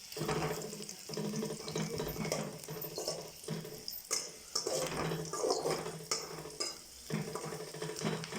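Onions frying in oil in a pan, sizzling, with irregular clinks and scrapes of a utensil against the pan and a low hum that breaks off now and then.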